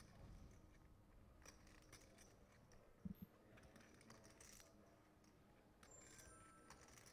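Near silence with faint scattered clicking of poker chips being handled and a soft low thump about three seconds in. A faint high ding from the action clock comes near the end, its ten-second warning.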